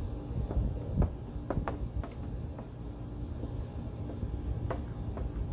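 Scattered light clicks and scrapes from a plastic squeegee and towel working protective film onto a car headlight, over a steady low rumble, with a thump about a second in.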